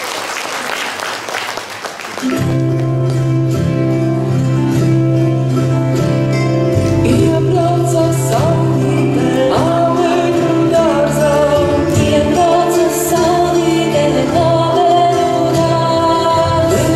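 Audience applause for about two seconds, then Latvian folk dance music starts suddenly, with sustained low tones under the melody and a singing voice.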